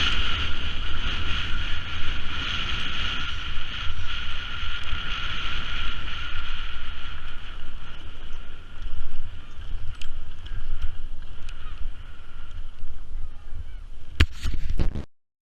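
Storm wind buffeting the action-camera microphone on a mountain slope: a heavy, fluttering rumble with a steady hiss above it. A few sharp clicks come near the end, then the sound cuts off abruptly.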